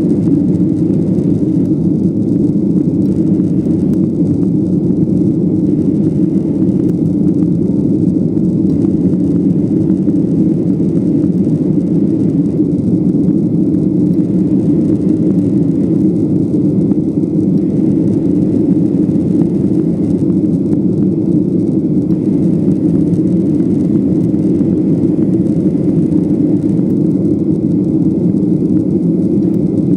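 Cabin noise inside a Boeing 737-800 climbing after takeoff: a steady, low-pitched drone from its CFM56-7B turbofan engines and the airflow over the fuselage.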